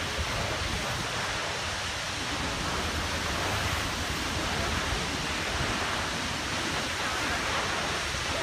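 Tall waterfall plunging down a cliff into the water below: a steady, unbroken rush of falling water.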